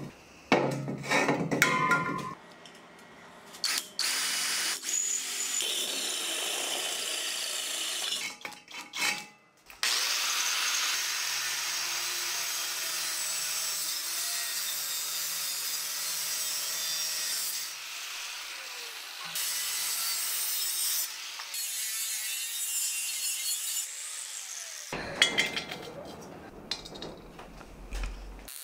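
Angle grinder cutting through the steel handle collar of an empty refrigerant cylinder: long stretches of steady, high grinding, with brief breaks between cuts. Metal parts clank on the steel bench at the start and again near the end.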